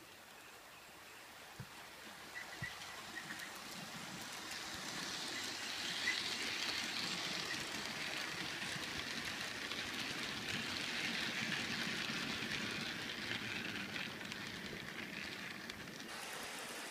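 H0-scale model container train, hauled by an NSB Di 3 model diesel locomotive, running past on the layout track: a steady rolling rattle of metal wheels on the rails that builds over the first few seconds as the wagons come close, then eases off near the end. A few light clicks sound about two to three seconds in.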